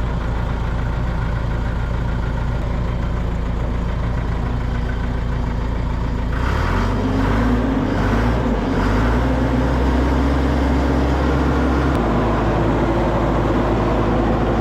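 Diesel engine of a vibratory road roller running just after being started, idling steadily. About six seconds in the engine speed picks up and settles at a higher, slightly louder level.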